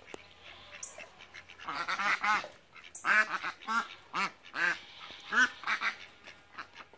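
Hen ducks quacking loudly in repeated runs of harsh calls, a few a second, loudest in the middle. It is the agitated quacking of nesting hens off their nests for water, which they are upset about.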